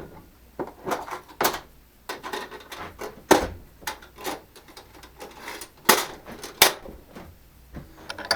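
Metal tools and a drill bit being handled: a string of irregular sharp clicks and clunks, the loudest about three seconds in and twice more a little past the middle.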